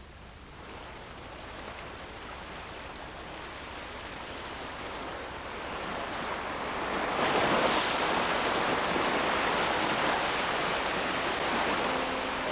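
A rushing noise that swells over several seconds and is loudest about halfway through, with music coming in near the end.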